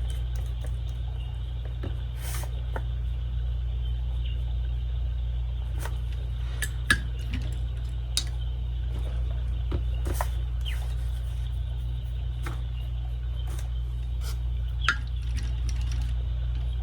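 A wet watercolour brush being worked between palette pans, water and paper, with soft swishes and a few sharp small taps. A steady low hum lies under it.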